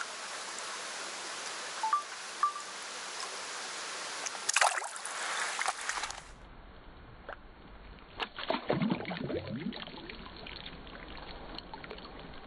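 Small forest stream running and trickling over a beaver dam, with a brief rustling scrape about four and a half seconds in. After about six seconds the sound turns duller, with the water gurgling and splashing close by.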